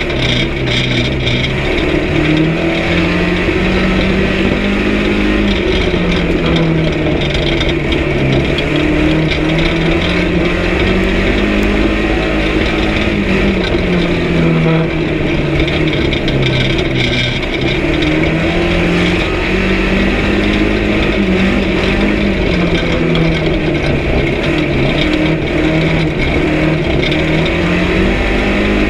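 Banger race car's engine running hard, heard from inside the cab, its pitch rising and falling every few seconds as it accelerates and lifts off.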